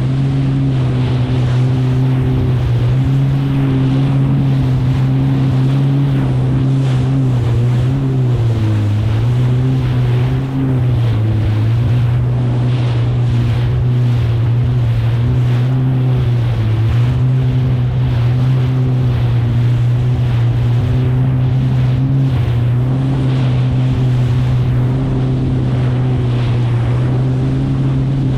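Kawasaki STX 160X jet ski's four-cylinder four-stroke engine running steadily at cruising speed, its pitch dipping briefly twice between about eight and eleven seconds in. Over it runs a constant rush of water and wind.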